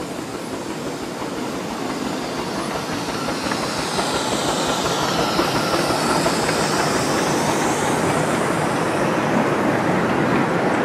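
A miniature passenger train hauled by a 2-4-2 steam locomotive running past, its carriages rolling by close. The running noise grows louder over the first half and then holds steady as the carriages pass.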